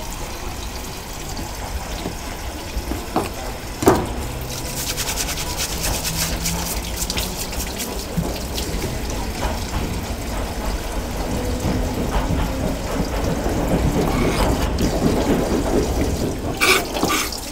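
Tap water running and splashing over hands and a plastic cutting board while abalone is rinsed and cleaned under it. There is a sharp knock about four seconds in and a few more sharp knocks near the end.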